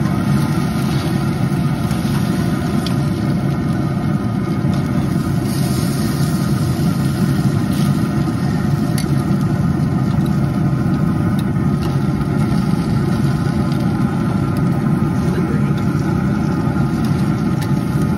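A steady, loud machine hum holding many even tones, unchanging throughout, with a few light clicks of metal tongs against the grill grate.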